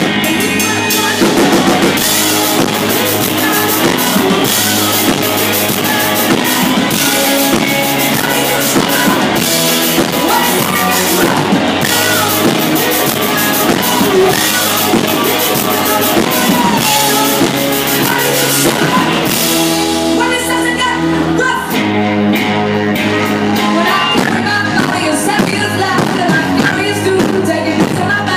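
Live rock band playing: drum kit, electric guitar and a woman singing into a microphone. About two-thirds of the way through, the drums drop out for a couple of seconds, leaving held notes, and then crash back in.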